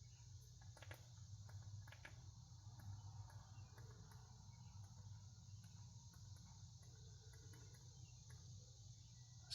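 Near silence: room tone of a steady low hum and hiss, with a couple of faint clicks in the first two seconds.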